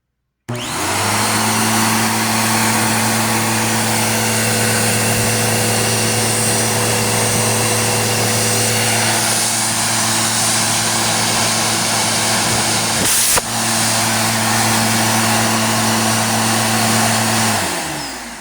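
Bissell PowerForce Helix Turbo Pet upright vacuum switched on about half a second in, its motor running with a steady hum and a rush of air through the hose. The hose is pulling hard, so it is not clogged. A sharp knock about 13 seconds in comes as the phone is sucked onto the hose end, and the motor winds down near the end.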